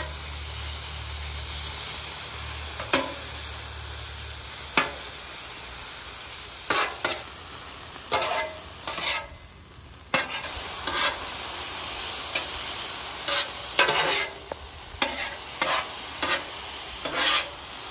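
Sliced steak and diced onions and peppers sizzling on a hot steel flat-top griddle. A metal spatula scrapes and clacks against the cooktop over and over as it tosses them together.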